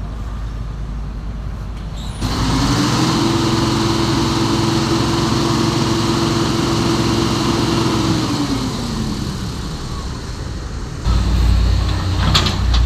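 Heavy diesel engine running. Its note rises about two seconds in, holds steady for several seconds, then winds back down, with a louder low rumble coming in suddenly near the end.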